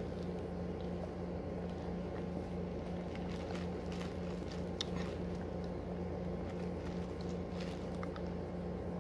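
A child sucking on a Toxic Waste sour hard candy, with faint scattered mouth clicks as the candy shifts against the teeth, over a steady low hum.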